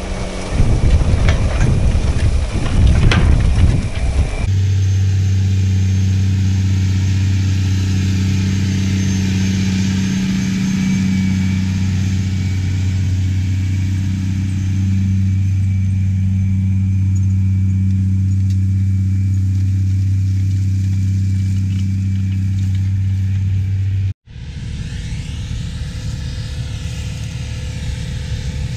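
Big Bud four-wheel-drive tractor's big diesel engine running steadily under load while pulling a moldboard plow, a deep even drone. Near the end it cuts off abruptly and gives way to a fainter, rougher engine rumble.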